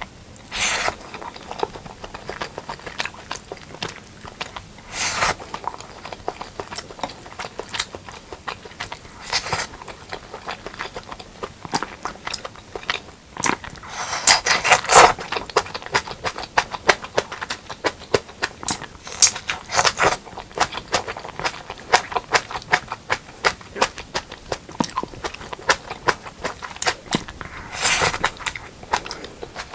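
Close-miked eating sounds of a person eating spicy pork leg curry and rice: chewing with many small wet clicks, and a few louder noisy bursts about six times.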